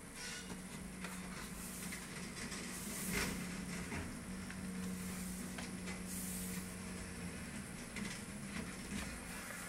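Pages of a hardcover photo book turned by hand: a papery swish about three seconds in and another about six seconds in, over a faint low hum.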